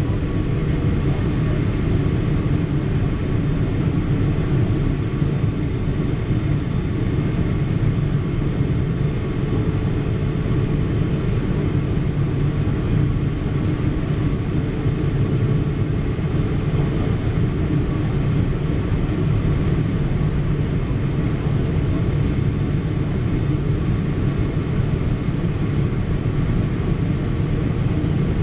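Steady cabin noise inside a Boeing 777-300ER airliner: a deep, even rush of airflow and engine noise with a faint steady hum.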